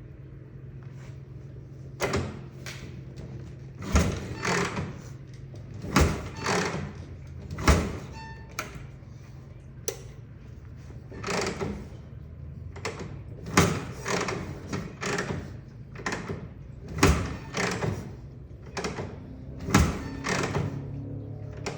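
1960 Harley-Davidson FL Panhead being kickstarted cold, over and over: a thump about every two seconds, each followed by a short burst of noise as the engine turns over without running. It is hard to start when cold.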